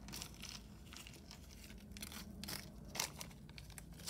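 Faint crinkling and rustling with scattered light clicks, from jewelry pieces and their wrapping being handled on the table; a sharper click about three seconds in.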